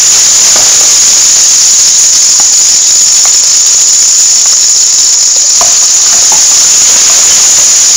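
Crushed garlic sizzling in hot oil in an aluminium pot: a loud, steady, high hiss, with a few faint taps of the wooden spoon stirring it.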